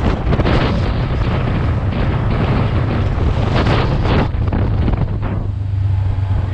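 Heavy wind buffeting on the microphone, rough and gusty, over a steady low drone; the buffeting eases about five seconds in while the drone carries on.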